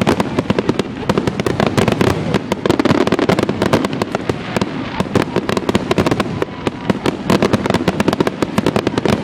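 Aerial fireworks going off in a dense, continuous barrage, many bangs a second with crackling between them, as in a show's grand finale.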